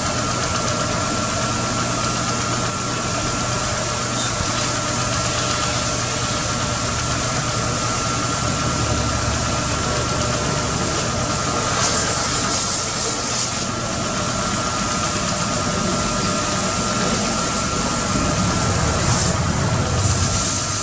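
Pressure washer running steadily with a constant whine and hum, its jet hissing as it rinses a car's engine bay. The spray hiss grows louder for a moment about twelve seconds in and again near the end.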